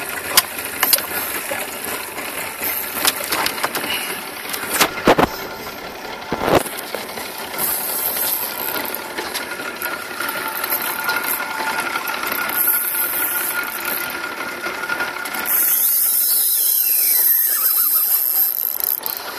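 Spinning reel working as a hooked Spanish mackerel is fought on a light jigging rod: a steady mechanical whirr with scattered clicks and a couple of sharp knocks, and a louder hiss for a few seconds near the end.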